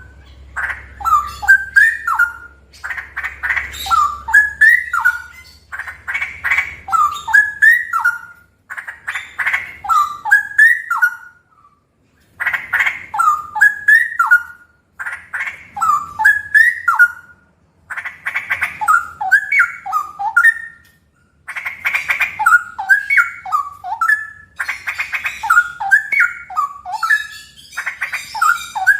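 Male straw-headed bulbul (cucak rowo) singing loudly in long, rapid song bouts. Phrase follows phrase about every two seconds, each a rasping chatter running into a bubbly run of rich whistled notes.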